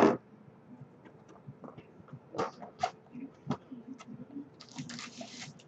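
Panini Playbook card box being handled and its lid opened. A sharp knock at the start, scattered taps and clicks, then a stretch of rustling near the end.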